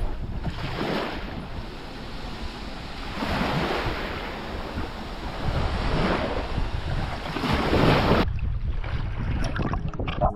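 Wind buffeting the microphone over the wash of sea surf, swelling and easing every couple of seconds. The sound changes abruptly near the end.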